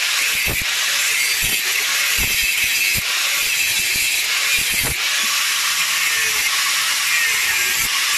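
Electric angle grinder running steadily, its disc grinding against the rusty steel of a hatchet head clamped in a vise.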